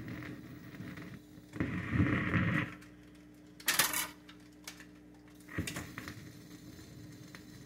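1956 RCA Victor record changer cycling to the next 78: mechanical clattering as the tone arm lifts and swings aside, a sharp slap about halfway through as the next record drops, and a click a couple of seconds later as the arm comes back down, over a steady low motor hum.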